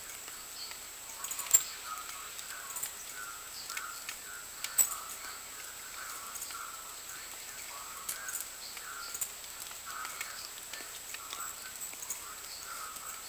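Birds calling over and over in short, irregular notes, with two sharp clicks, one about a second and a half in and one nearly five seconds in.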